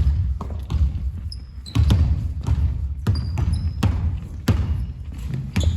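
Basketballs bouncing on a hard gym floor, with irregular thuds several times a second, mixed with short high squeaks of sneaker soles.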